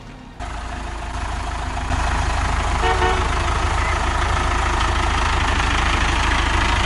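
Steady rumble of vehicle traffic, with heavy low-end noise, that starts suddenly and grows a little louder about two seconds in. A short horn-like toot comes about three seconds in.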